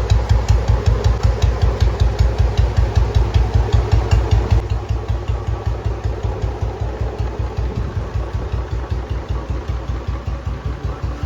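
Royal Enfield Bullet UCE single-cylinder engine idling with a slow, even thump of about five beats a second. Sharp ticks ride along with each beat until about four and a half seconds in, when they stop and the engine sounds slightly quieter.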